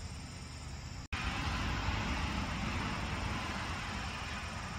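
Steady outdoor background hum and hiss with no distinct event, cutting out abruptly for an instant about a second in and resuming slightly louder.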